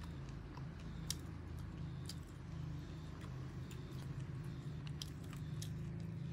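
A person eating fried tofu: biting and chewing, with scattered short sharp clicks of chopsticks against the dish, over a steady low hum.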